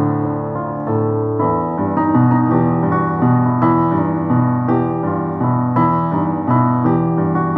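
Solo piano playing a medley of Guatemalan melodies in a piano arrangement, with a bass line under chords and melody.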